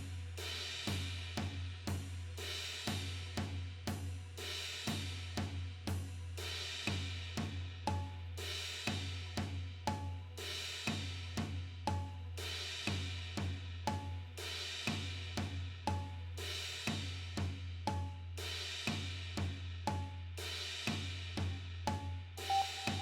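Background music: a drum-kit beat with cymbals, hi-hat and snare over a steady low bass note. From about eight seconds in, a short high note sounds about every two seconds.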